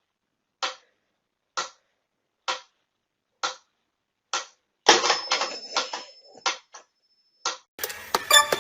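Sharp mechanical clicks, evenly spaced about once a second, then a quick flurry of clattering clicks about five seconds in.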